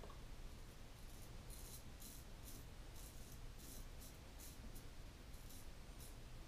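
Portland Razor Sprite 6/8" straight razor scraping stubble off a lathered cheek in a series of short strokes, each a faint rasp, about two or three a second.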